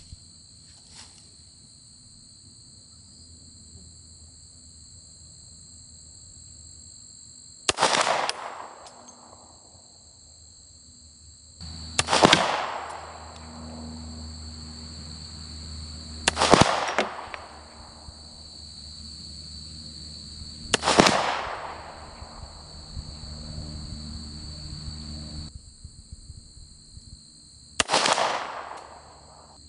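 Five shots from a Smith & Wesson Model 52-2 semi-automatic target pistol firing .38 Special wadcutter reloads, each trailing off in a short echo. The first four come about four seconds apart, and the last follows after a longer pause.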